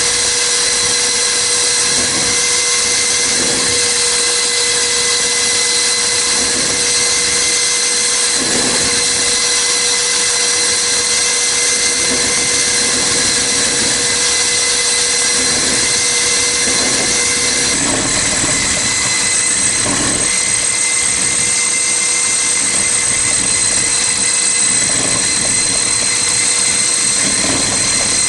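Diamond core drill cutting dry with a 200 mm core bit: a steady motor whine over a continuous grinding hiss.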